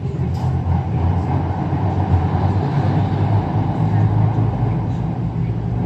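Steady rumble and hum of an MRT Putrajaya Line train running between stations, heard from inside the carriage.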